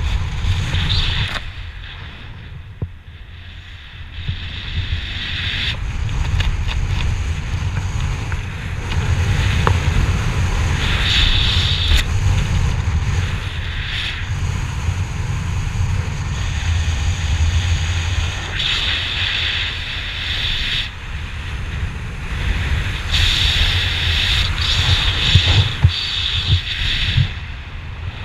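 Wind rushing past and buffeting the microphone during descent under an open parachute canopy: a steady low rumble with a hissing layer that swells and fades every few seconds, easing briefly a few seconds in.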